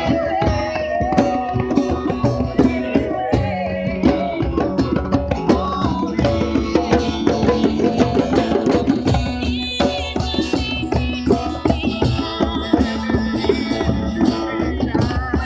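Live acoustic music: a woman singing into a microphone over a strummed steel-string acoustic guitar, with a clarinet playing.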